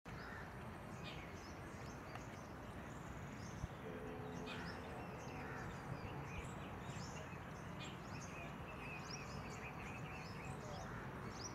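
Scattered short chirps and calls of small birds over a steady low background rumble, with one sharp click about three and a half seconds in.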